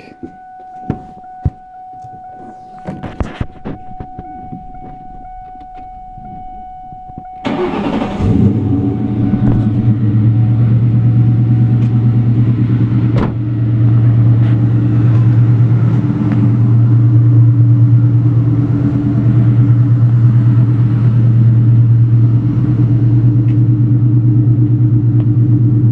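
A steady high whine and a few clicks, then about seven seconds in a 1998 Mustang GT's 4.6-litre V8 starts and settles into a loud, steady idle. The exhaust runs through long-tube headers, a hollowed-out catted H-pipe and a Magnaflow Street Series catback.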